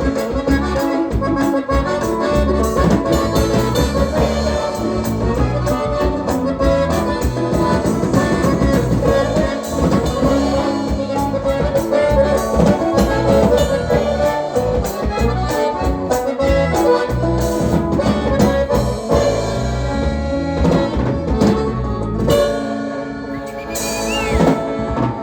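Live Latin band playing an instrumental passage with no singing, drums keeping a steady beat under melody instruments; the music thins out near the end.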